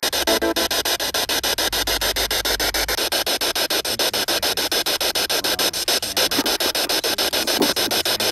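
Spirit box (ghost box) sweeping through radio stations: a rapid, even chopping of static, about eight pulses a second, with brief scraps of pitched sound caught between the pulses.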